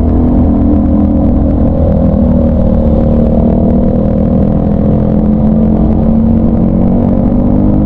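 Motorcycle engine running under way, heard from a handlebar-mounted camera: a steady note that climbs slowly in pitch as the bike speeds up, over a low rumble.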